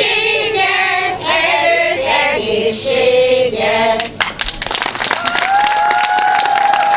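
Women's folk choir singing the last phrase of a song, ending about four seconds in; applause starts right after, with a steady high tone sounding over it for about two seconds near the end.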